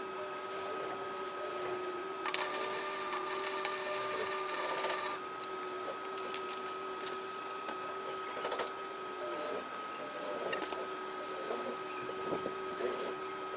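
Welder humming steadily, with a crackling burst of arc welding about two seconds in that lasts about three seconds, followed by scattered clicks.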